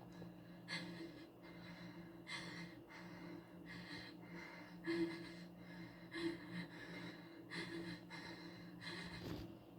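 Faint, quick breath-like puffs close to the microphone, roughly one a second, over a steady low hum.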